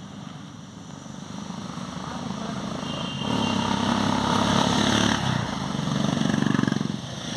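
A vehicle engine running, growing steadily louder over the first few seconds.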